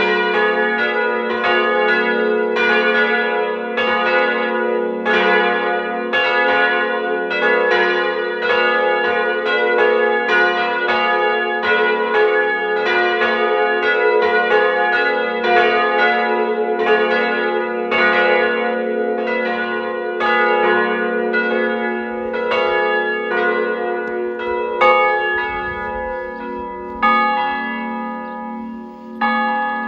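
Peal of three swinging church bells cast by Ulrich & Weule of Apolda (about 900, 550 and 450 kg), ringing together in a rapid, overlapping stream of strokes. In the last few seconds the strokes thin out to a few single, widely spaced strikes as the ringing dies down.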